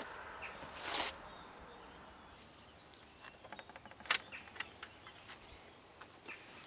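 Light mechanical clicks and ticks from hands adjusting the Garrard 3000 turntable's tone-arm set-down point, with one sharper click about four seconds in, over faint background noise.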